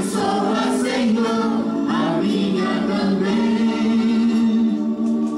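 Vocal music: several voices singing together in a choir-like style, steady throughout.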